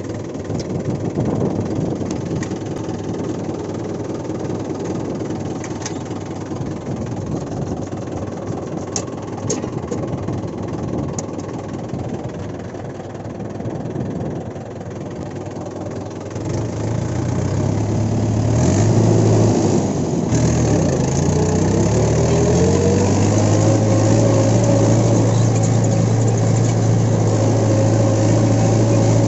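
Mahindra Sarpanch 585 DI tractor's diesel engine running as it pulls a cultivator through the field. About two-thirds of the way through it grows louder and its pitch rises over a few seconds, then holds steady at the higher speed.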